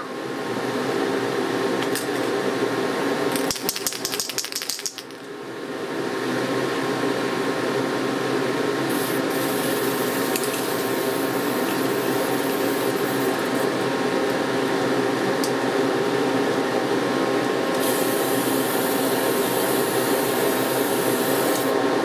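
A small motor whirring steadily, broken by a few clicks about four seconds in, then running on.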